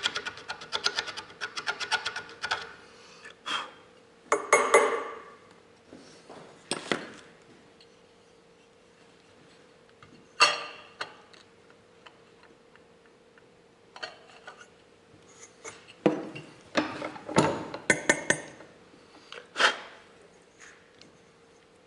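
Hand work on metal car-horn parts at a bench: a fast, even scraping for the first two and a half seconds, then scattered clinks, knocks and short rubs with quiet gaps between them.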